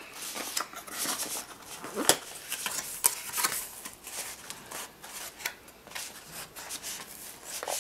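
Small cardboard box being handled and opened one-handed: scattered light clicks, taps and rubs of the cardboard lid and flaps as it is lifted open.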